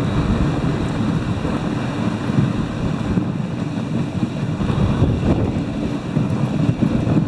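Wind buffeting the microphone of a camera riding on a moving dog sled: a steady low rumble.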